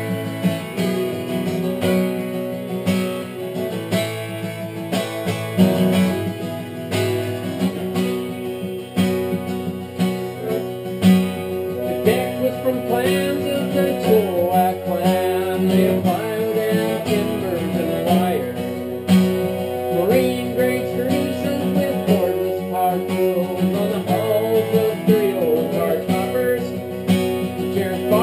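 An accordion and an acoustic guitar playing together: the guitar strums a steady rhythm under long held accordion chords, with a moving melody on top.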